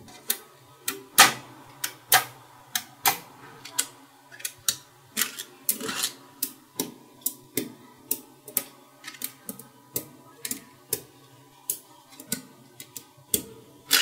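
Small magnet balls clicking sharply as blocks and strips of them are snapped onto a magnet-ball structure: irregular single clicks, about one to two a second.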